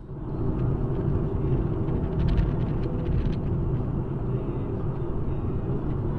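Steady low rumble of a car driving on a snow-covered highway, tyre and engine noise heard from inside the cabin. A few faint clicks come between two and three seconds in.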